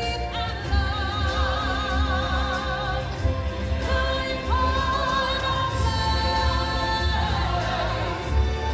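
Live stage-show music with singers holding long notes that waver in pitch, over a steady low pulsing accompaniment.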